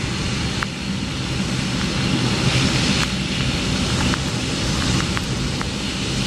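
Boeing 757-200's twin jet engines running at taxi power: a steady rumble and hiss with a faint high whine, and a few light ticks scattered through.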